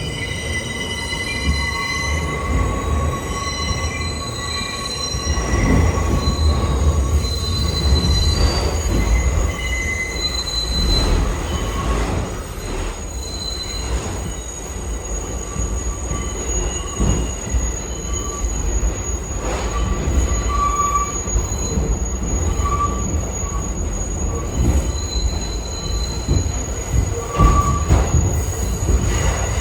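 New York City Subway R62A train running on the rails, its wheels squealing in several high, steady tones that come and go over a continuous low rumble.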